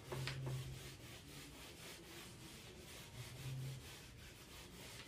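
Whiteboard duster scrubbing back and forth across a whiteboard to wipe it clean: faint, repeated rubbing strokes. A low hum comes and goes twice, near the start and again after about three seconds.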